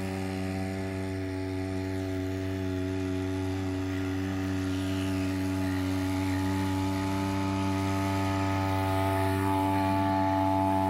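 Small 2 hp two-stroke petrol outboard motor, a converted line-trimmer engine, running steadily at one unchanging pitch and slowly getting louder.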